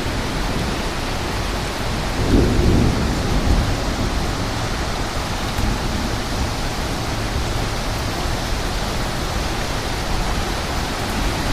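Severe thunderstorm: strong wind blowing steadily with rain, and a louder low rumble swelling about two seconds in.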